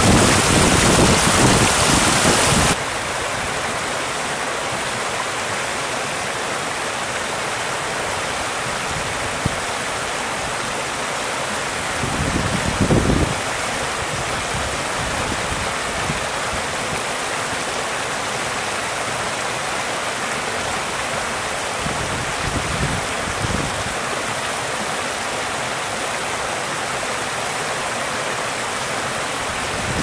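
Icy river water running fast over rocks, a steady rush of splashing and gurgling. About three seconds in it drops suddenly to a quieter, duller rush. Brief louder gurgles rise twice, near the middle and about two-thirds of the way through.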